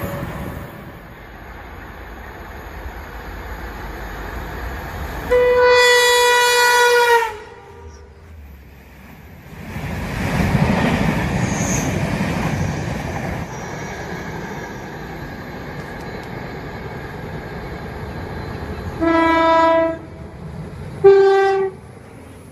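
Enterprise passenger train's horn and passing rumble: one long, loud horn blast about five seconds in, the rumble of the train going by, then two shorter blasts near the end, the second higher in pitch than the first.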